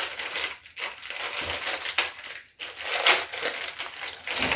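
Packaging crinkling and rustling as it is handled, in irregular stretches with short breaks.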